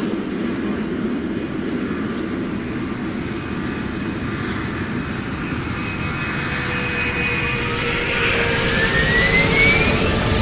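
Jet airliner engines: a steady rumble, then over the second half a whine that rises in pitch and grows louder.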